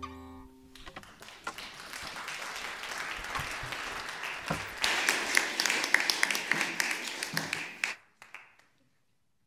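The last strummed chord on two acoustic guitars rings out briefly, then a small audience claps. The applause builds and dies away about eight seconds in.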